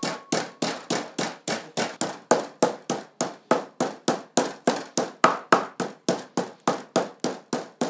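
Meat mallet pounding pork cutlets flat for tonkatsu on a cutting board: a steady run of blows, about four a second.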